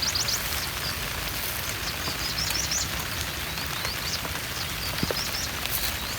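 Steady hiss of rain, with repeated trains of quick, rising high-pitched chirps over it.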